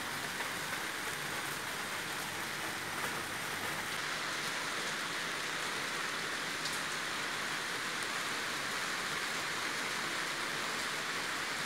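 Steady monsoon rain falling on trees and balcony plants: an even hiss with the odd faint drop tick.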